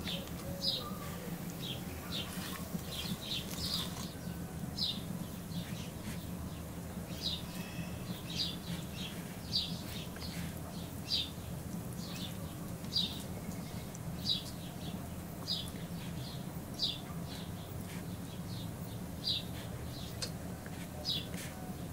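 A small bird chirping over and over, short high calls roughly one a second, over a steady low background hum.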